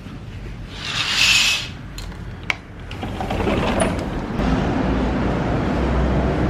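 A sliding balcony door slides open with a hiss about a second in, followed by a sharp click; then steady outdoor noise with a low rumble builds up and holds.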